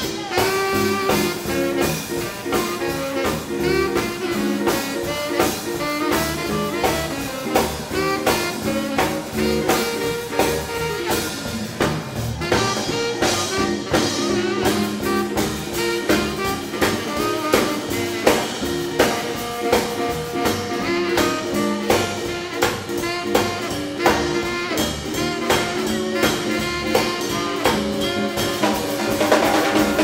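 Live swing band playing a dance tune: saxophone and brass leading over a drum kit keeping a steady beat.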